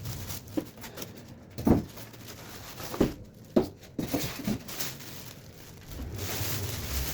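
A handful of light knocks and taps, then a rustling that starts near the end.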